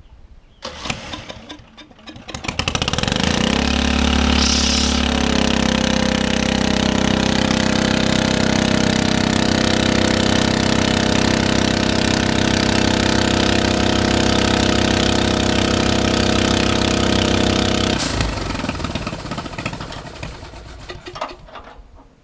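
Small gasoline engine starting about two and a half seconds in, settling into a steady run, then shut off about eighteen seconds in and winding down.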